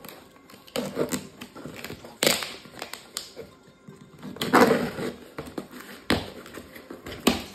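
Utility knife cutting through the packing tape and cardboard of a shipping box, with the box being handled and its flaps pulled; a string of irregular scrapes, rips and knocks.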